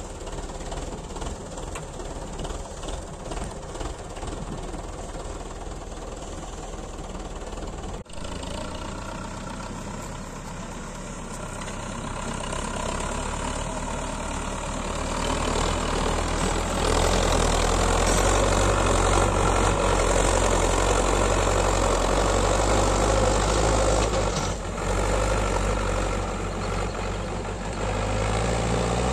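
Belarus 510 tractor's diesel engine pulling a trolley heaped with soil, with a sharp break about 8 seconds in. It runs louder in the second half, dips briefly, then revs up near the end.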